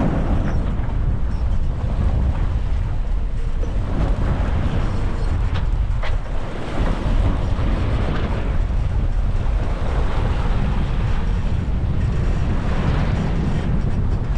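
Strong wind buffeting the microphone on a sailboat under way, with the rush and wash of rough swells along the hull; a steady, loud noise with no let-up.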